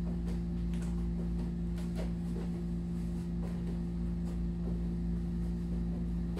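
A steady low hum, with faint scattered taps of hands and feet on a floor mat.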